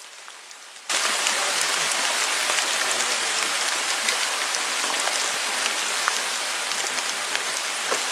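Steady patter of falling water, like rain on a surface, starting abruptly about a second in.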